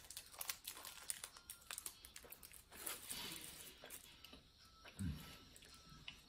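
Thin plastic wrapper crinkling around a mame daifuku (bean-studded rice cake) as it is held and bitten, with small clicks and rustles mixed with chewing. A brief low mouth sound about five seconds in.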